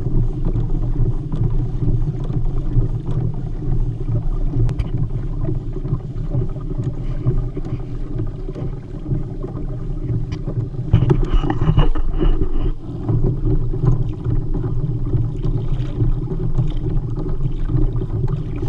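Fishing kayak moving across calm water: a steady low rumble of water along the hull, with wind on the kayak-mounted camera's microphone. It turns briefly louder and brighter about eleven seconds in.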